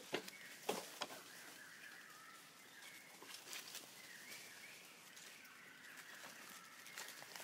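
Quiet forest ambience: a few sharp crackles of dry leaf litter in the first second, then faint, wavering high calls in the background.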